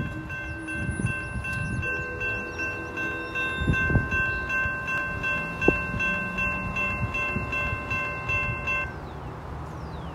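Railroad grade-crossing warning bell ringing steadily, then stopping abruptly about nine seconds in.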